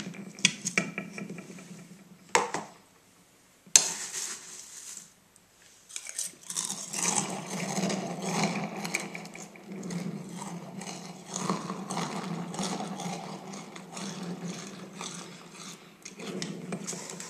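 Spoon clinking against a cereal bowl, with a sharp clink about four seconds in, then from about six seconds on a run of close, continuous crunching as Frosted Flakes are chewed.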